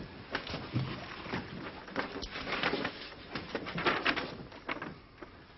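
Sheets of paper rustling as they are handled and leafed through, with irregular rustles that are loudest about two and four seconds in and die down near the end.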